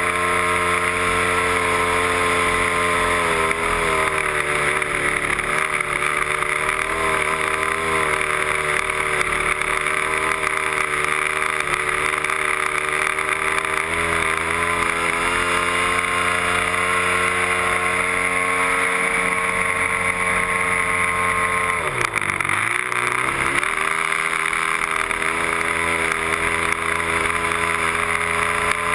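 Motor of a radio-controlled model Piper Cub running in flight, heard from a camera on the airframe, its pitch wavering with throttle and manoeuvres. About 22 seconds in the pitch drops sharply as the throttle is pulled back, then climbs again within a second or two.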